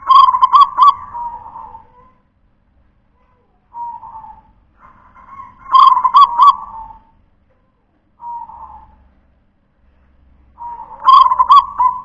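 Zebra dove (perkutut) singing its rhythmic cooing song. A phrase of three emphatic notes is repeated three times, about five seconds apart, with softer coos in between.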